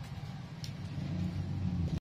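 A steady low rumble with one faint click a little over half a second in.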